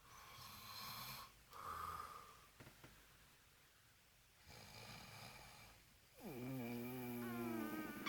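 A drunk man snoring heavily: a series of rasping snores, the last one near the end longer, with a droning hum.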